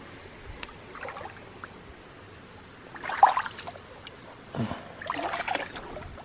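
Rustling and scuffing of someone clambering over fallen logs and branches at the water's edge, in two louder bursts: a short one about three seconds in and a longer one from about four and a half seconds.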